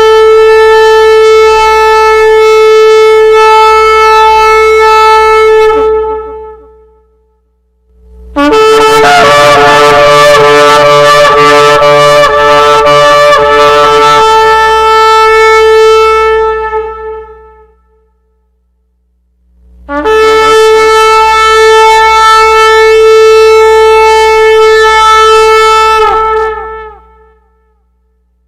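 Shofar sounded in three long blasts, each a single held note with many overtones and separated by about two seconds of silence. The first is already sounding and ends about six seconds in. The middle blast, from about eight to seventeen seconds, is brighter and rougher than the other two.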